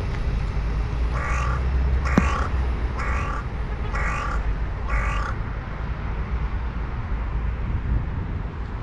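A crow cawing five times, about one caw a second, over a steady low rumble.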